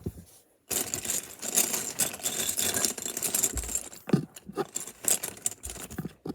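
Loose LEGO pieces clattering as hands sift and rummage through them: a dense run of small plastic clicks and rattles that starts abruptly about half a second in.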